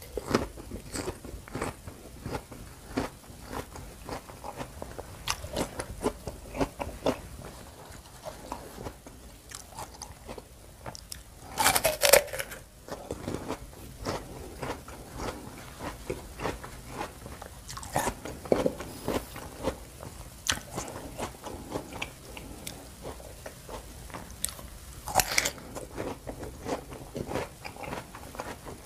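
A person biting and chewing crisp, juicy wax apple (jambu air) with rujak sauce: a steady run of wet crunches, with a louder, longer crunch about twelve seconds in and another about twenty-five seconds in.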